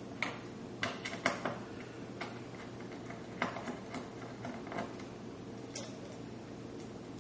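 Small screwdriver turning tiny screws out of a Radeon HD 6990 graphics card's backplate: a dozen or so irregular light clicks and ticks over about the first six seconds, with a faint steady hum underneath.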